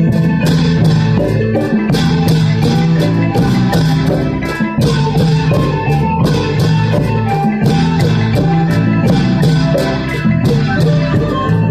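Upbeat dance music with plucked strings and drums keeping a steady, fast beat.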